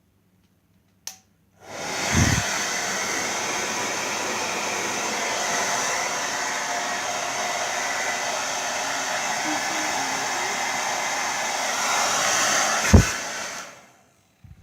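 Babyliss Turbo Power 2200 hairdryer switched on about a second and a half in, its fan running with a steady whooshing hiss for about twelve seconds. Near the end it is switched off with a knock and winds down.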